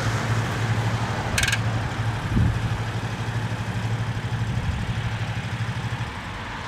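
Kawasaki Mule 3010 utility vehicle's engine idling steadily. A brief high-pitched tone sounds about a second and a half in, and a short low thump follows a second later. The engine note fades near the end.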